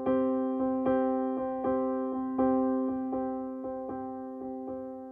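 Background keyboard music with a slow tune of struck notes, each ringing and fading, and a stronger note about every three-quarters of a second.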